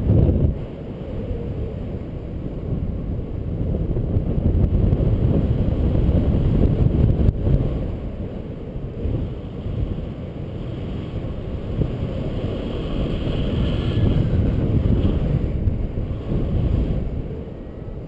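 Wind buffeting the microphone of a camera carried by a paraglider pilot in flight: a low rushing rumble that swells a few seconds in, eases, swells again, and drops off near the end.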